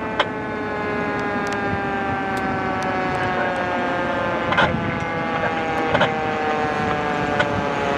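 Tractor-drawn ladder fire truck's siren sounding a steady wail that slowly falls in pitch, over the truck's engine, with two short sharp blasts about a second apart near the middle.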